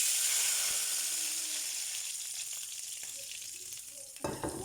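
Hot oil in a cooking pan bursting into a loud sizzle all at once as something goes in, then slowly dying down. A short clatter, like a utensil knocking the pan, comes near the end.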